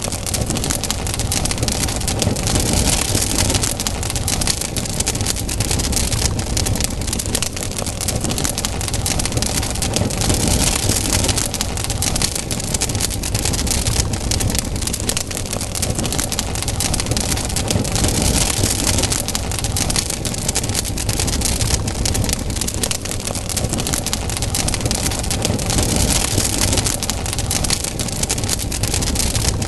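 Wood campfire burning, with dense, constant crackling and popping over a steady rush of flame, and a high hiss that swells and fades about every eight seconds.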